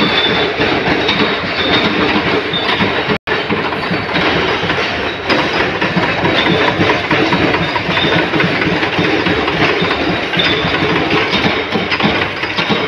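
Flywheel-driven mechanical punch presses (power presses) running, a loud continuous clatter of press strokes stamping rings out of sheet-metal plate. The sound drops out briefly about three seconds in.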